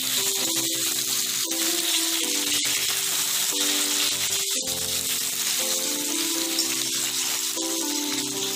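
Potato, radish and flat bean pieces sizzling as they fry in mustard oil in a kadai, with background music of held notes playing over it.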